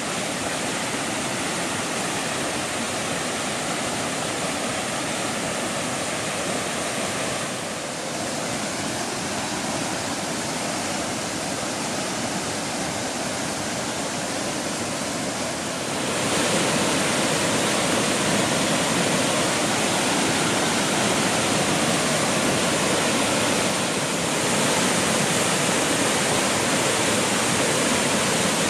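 Waterfall: a steady, dense rush of falling water, stepping abruptly louder about 16 seconds in and slightly again about 24 seconds in.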